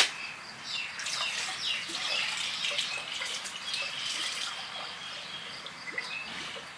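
Water poured from a plastic bowl into a surface well pump, splashing and trickling as the pump is primed after being drained. The pouring fades toward the end.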